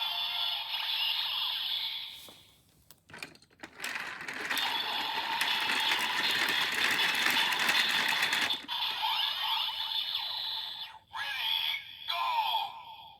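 Kamen Rider Build toy transformation belt (Build Driver) playing its electronic sound effects through its small tinny speaker: a stretch of sound, a short gap about three seconds in, a long dense passage, then a few short separate bursts near the end.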